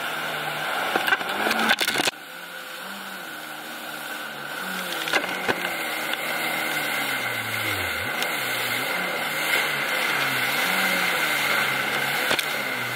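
Jet ski engine running under a tow, its pitch sliding up and down as the throttle changes and dipping low about eight seconds in, over a wash of water and wind noise. The sound drops suddenly in loudness about two seconds in.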